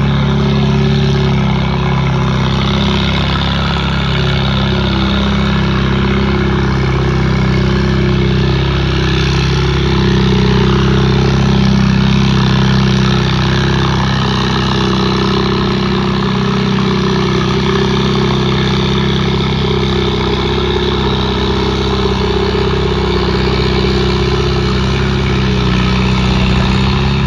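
A steady, loud motor hum with several held tones that shift slightly in pitch now and then.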